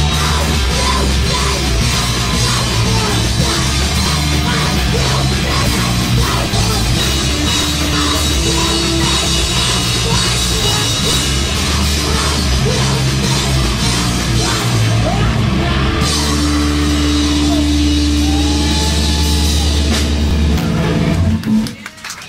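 Hardcore punk band playing loud and fast live, drum kit driving the song, which stops abruptly about a second before the end; scattered clapping starts as it ends.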